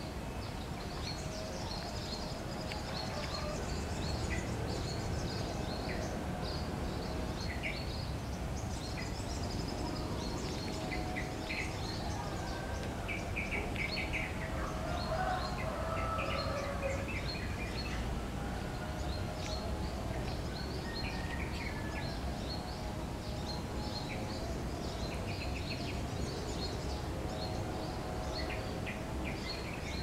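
Wild birds chirping and calling in short repeated notes over a steady low rumble of outdoor background noise.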